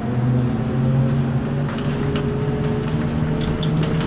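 Interior of a ZiU-682G trolleybus on the move: the steady hum of its electric traction motor over a low road rumble, with scattered rattles and clicks from the body and fittings.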